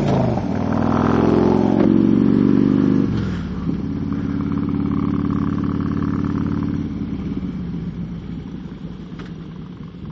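Motorcycle engine accelerating as the bike pulls away, rising in pitch, with a gear change about three seconds in, then running steadily before easing off near the end.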